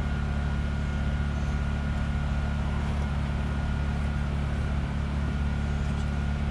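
A steady, unbroken low mechanical hum with a faint high whine over it.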